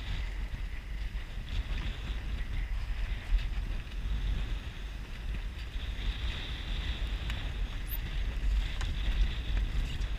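Wind buffeting the microphone aboard a sailboat under sail, a steady low rumble that rises and falls with the gusts, with a hiss of wind and water over it.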